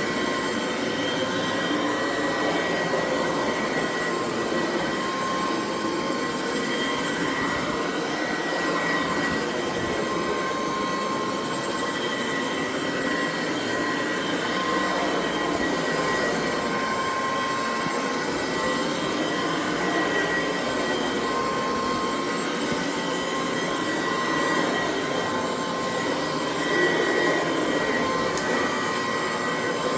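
Dual Sanitronic 80 vacuum cleaner running steadily while vacuuming, its motor's rushing air overlaid with a constant high whine.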